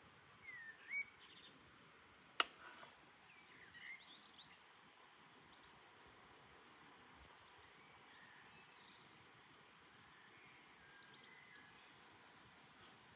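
Faint outdoor ambience with small birds calling: a few short chirps and whistled, gliding notes in the first five seconds, sparser ones near the end. A single sharp click at about two and a half seconds stands out above the faint steady background noise.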